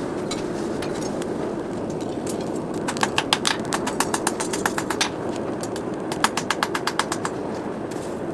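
Steady rushing of air blown through a charcoal forge fire while a steel knife blade heats in the coals. About three seconds in, and again near six seconds, come runs of fast sharp crackles, several a second, as the burning charcoal pops and throws sparks.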